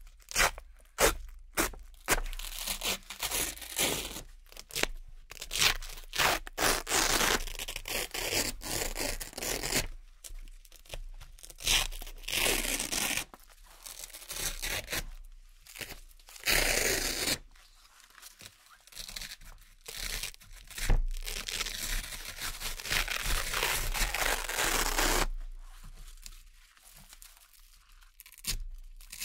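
Circular Velcro patches being peeled off a Velcro board one after another: repeated crunchy ripping tears. Some are short and some are drawn out over several seconds, with brief quieter pauses between them.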